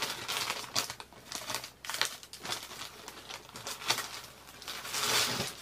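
Clear plastic pillow packaging crinkling and rustling in irregular bursts as the bag is cut open and pulled off a pillow, louder near the end.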